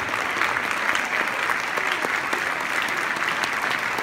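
Large audience applauding steadily, many hands clapping at once, with a few voices calling out.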